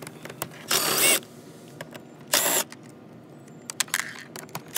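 Cordless drill with a 7 mm socket on an extension running out bolts in short bursts: two of about half a second, a second and a half apart, and a third starting at the very end, with small clicks of the socket and bolts in between.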